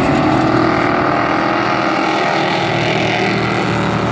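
Engines of several dirt-track race pickup trucks running at racing speed together, steady and loud.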